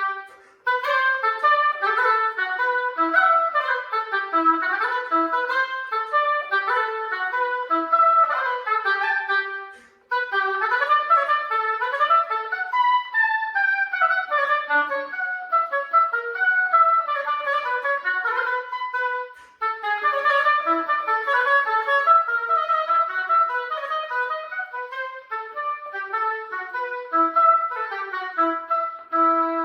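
Solo oboe playing quick running passages of notes that climb and fall, broken by short pauses about ten and twenty seconds in, and closing on a held low note.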